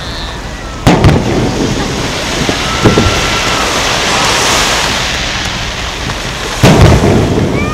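Aerial fireworks shells bursting: two heavy booms about six seconds apart, each with a rumbling echo, and a smaller bang between them, over a steady hiss of falling, crackling stars.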